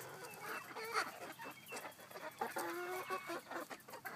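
Backyard hens clucking, a steady string of short calls.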